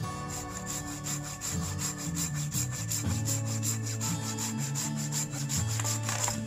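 Hand pruning saw cutting through a wooden pole with steady back-and-forth strokes, which stop near the end.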